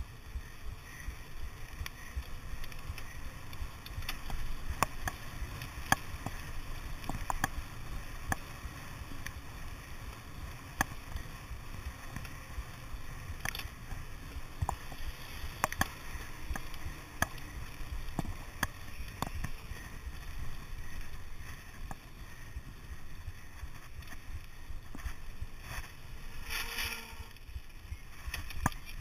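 Mountain bike rolling fast down a tarmac lane: low rumble of tyres and wind on the microphone, with frequent sharp clicks and rattles from the bike. Near the end comes a short, harsher hiss.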